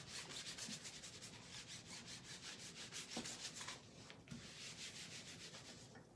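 A wet wipe scrubbed quickly back and forth over a plastic silkscreen stencil on a tabletop to clean chalk paste out of the mesh: a fast, faint rasping rhythm of several strokes a second. It breaks off briefly about four seconds in, resumes, and stops near the end.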